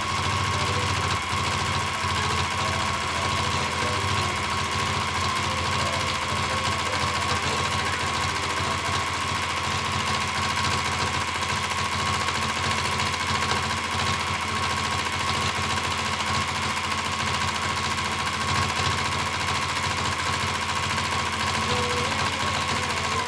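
Domestic sewing machine stitching continuously at high speed during free-motion quilting, with a steady whine. It runs without a pause and cuts off right at the end.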